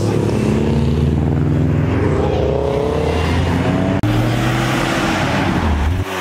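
Modified cars accelerating away one after another. First a Subaru Impreza's flat-four engine and exhaust rev hard as it passes, with the engine note rising. After a cut about four seconds in, another car's engine revs up as it drives off.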